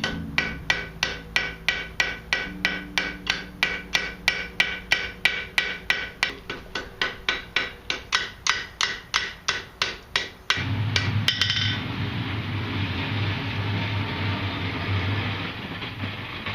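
Hand hammer striking hot wrought iron on an anvil, forging a fork's tines in a steady rhythm of about three blows a second, each blow ringing. About ten seconds in, the hammering stops and a steady rumbling noise takes over, with a few quick light strikes just after.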